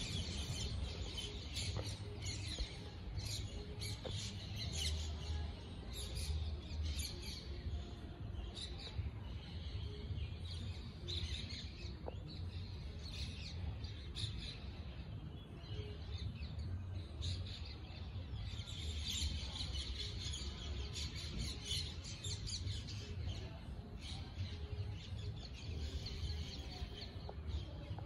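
Many small birds chirping continuously, with quick overlapping chirps, over a steady low rumble.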